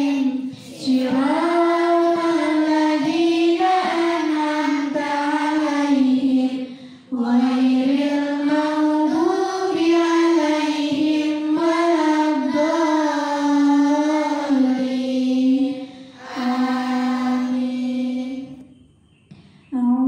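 A group of girls chanting a prayer together in unison, in long sung phrases with brief pauses between them.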